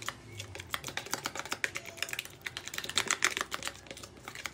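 A spoon stirring a thick curd and aloe vera gel hair pack in a plastic bowl, clicking rapidly and scraping against the bowl's side.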